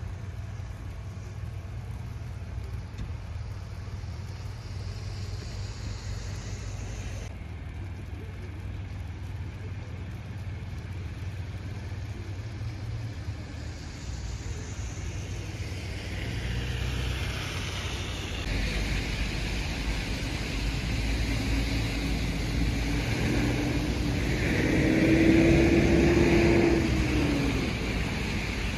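Road traffic: a steady low rumble of cars. In the second half a vehicle's engine and tyre noise grow louder, pass close near the end, then fade.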